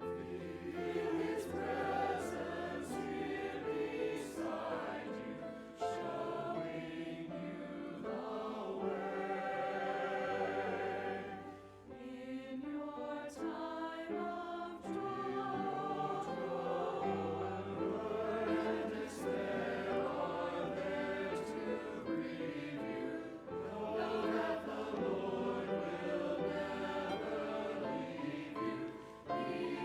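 Choir singing a slow sung benediction over instrumental accompaniment that holds long, low bass notes, with a brief pause about twelve seconds in.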